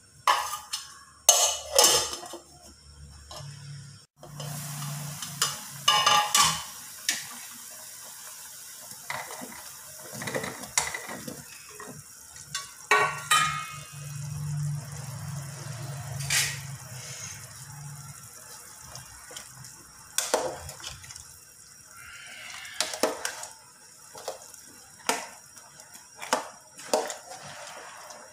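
Cooking at a steel stockpot: a string of clinks, knocks and splashes as winter melon pieces go into chicken broth and a plastic ladle stirs the soup. A steady hiss runs through the middle part.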